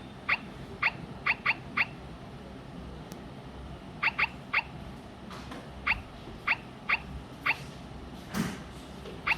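Short key-press beeps from a fingerprint smart lock's touch keypad: about a dozen quick beeps in irregular groups as keys are tapped, with a pause of about two seconds near the start and a soft rustle near the end.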